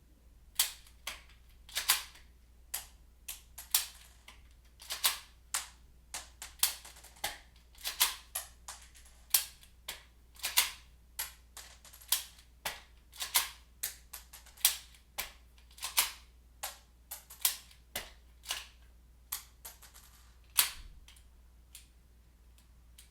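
Walther P22 pistol being worked with snap caps: a long run of sharp metallic clicks and clacks, roughly two a second and often in quick pairs, as the slide is racked and the hammer dropped. The clicking stops about two seconds before the end.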